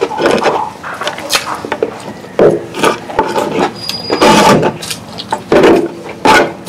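Close-miked chewing of a mouthful of fried chicken and rice, with wet lip smacks and mouth noises coming in irregular loud bursts.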